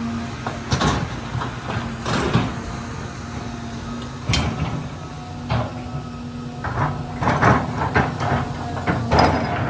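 John Deere excavator running with a steady engine hum, broken by several sharp, irregular cracks and crunches of branches and brush breaking as the machine works through the vegetation.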